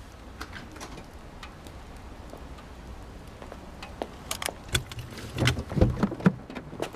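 Scattered light clicks and knocks that grow louder and more frequent from about four seconds in, with a few low thuds among them.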